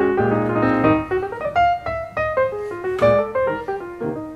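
Background piano music: held chords, then a melody of single notes.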